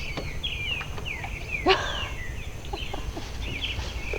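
Songbirds singing: a run of short, high, downward-sliding chirps repeated throughout, over a steady low rumble. One short, louder call stands out about a second and a half in.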